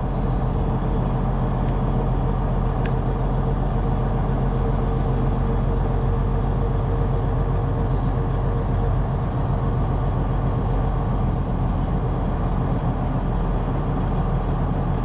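Semi-truck's diesel engine running steadily at low speed, heard from inside the cab as an even, low hum.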